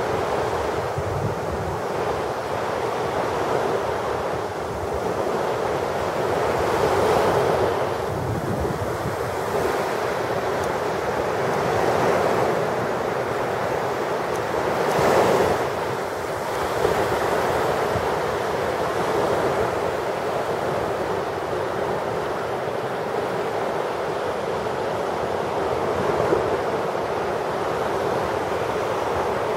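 Small Mediterranean waves breaking and washing up on a sandy beach: a steady wash that swells louder every few seconds as each wave comes in, the biggest surge about halfway through.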